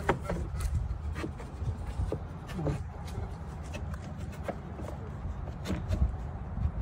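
Scattered light taps, clicks and rubbing as pieces of crown molding are handled and pressed together into an outside corner by hand, over a low steady rumble.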